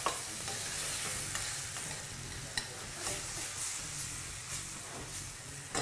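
Onions frying in a pan, sizzling steadily as they are stirred, with a few light knocks of the utensil or a knife.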